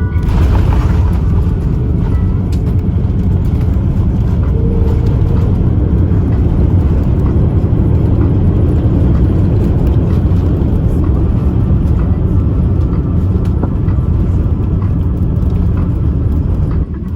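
Loud, steady rumble of Rolls-Royce Trent XWB jet engines and airflow heard inside an Airbus A350-1000 cabin. It starts suddenly and cuts off just before the end.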